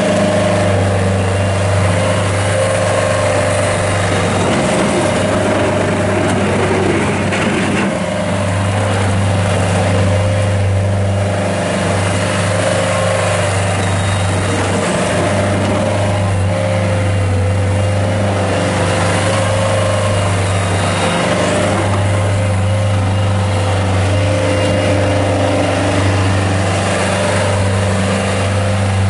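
Kubota diesel engine of a Bobcat S175 skid steer loader running steadily while the machine is operated. A steady whine sits above the engine's low drone.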